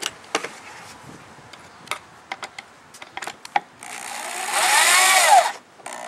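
A power drill driving a screw into the pine birdhouse roof in one burst of about a second and a half, its motor pitch rising and then falling as the trigger is squeezed and let go. Before it come a few light clicks and knocks of handling.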